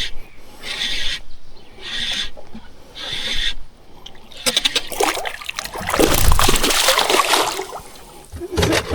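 Water splashing beside a fishing boat for about three seconds, preceded by four short swishes about a second apart.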